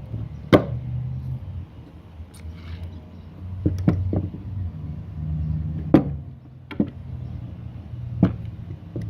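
Sharp knocks and clanks from a metal drill press XY table being handled and set down, about seven spread unevenly, over a low rumble.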